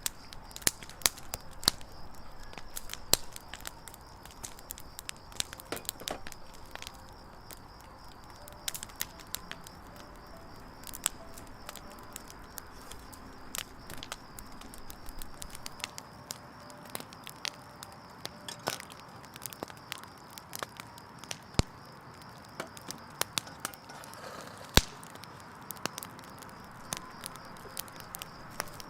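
Firewood burning in a campfire, crackling with irregular sharp snaps and a few louder pops over a soft steady hiss of the flames.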